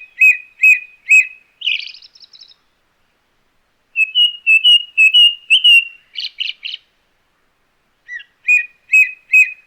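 Indian blackbird singing: three phrases, each a run of four to six clear repeated notes at about two or three a second, ending in a higher, thinner twitter, with pauses between the phrases.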